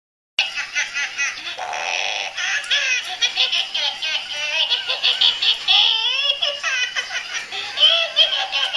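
A baby laughing hard: a fast run of high-pitched giggles and squeals, starting about half a second in.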